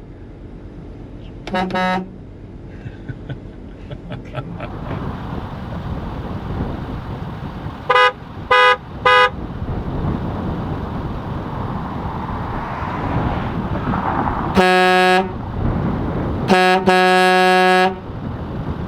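Vixen air horn on a 2022 Ford F-350, fed by a Viair onboard air system, sounding in a series of blasts: one short blast about two seconds in, three quick toots around eight to nine seconds, then two longer blasts near the end, the last about a second long.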